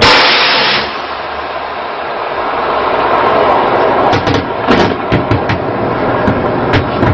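Naval gunfire aimed at a small boat: a loud blast at the start, then from about four seconds in a string of sharp, irregular gunshots over a steady rushing background.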